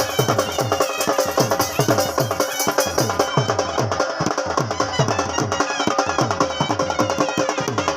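Music driven by a fast, steady drum rhythm, with deep drum strokes that drop in pitch several times a second under a busy layer of other instruments.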